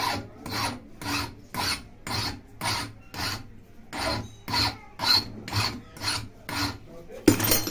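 Hand file rasping back and forth on a metal sewing-machine link, about two even strokes a second. The link is being filed down because it seats too tight.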